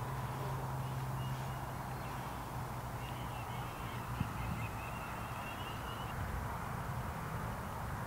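Outdoor ambience: birds calling over a steady low hum that fades out about three seconds in, with one small click a little after four seconds.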